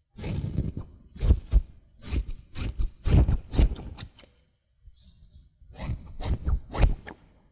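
Close-up hair-cutting scissors snipping through hair in irregular runs of quick snips, with a short lull about five seconds in.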